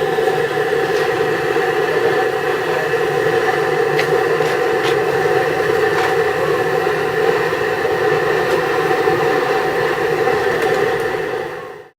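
Steady mechanical running noise, a hum and whir with a few steady tones and occasional faint clicks, that cuts off suddenly near the end.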